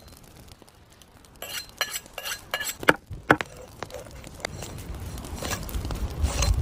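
Cooking utensils clinking and knocking against cookware: a run of sharp clinks, some briefly ringing, about a second and a half in, with a few louder knocks about three seconds in. A low rumbling noise builds near the end.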